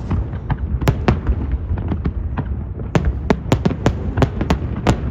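Fireworks display: sharp cracks of bursting shells over a steady low rumble, the bangs coming thick and fast from about three seconds in.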